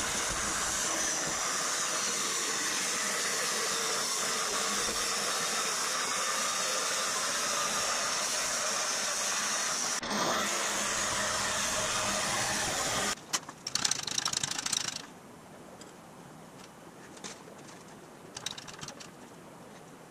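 Vertical band saw cutting sheet aluminium, a steady hiss of blade on metal over the machine's running hum. It stops after about thirteen seconds, followed by a couple of seconds of irregular rattling and then only faint shop noise.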